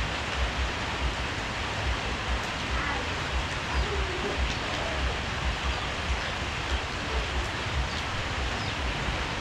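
Heavy rain falling steadily, a dense even hiss, with irregular low thuds beneath it.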